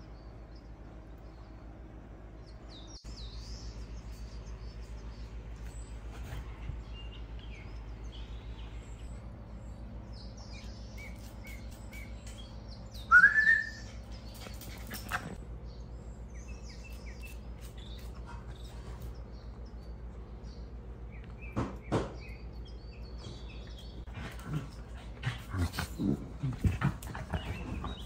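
Faint birds chirping throughout. About halfway through, a dog gives one short, loud, rising yip, and near the end there is a run of light taps and knocks.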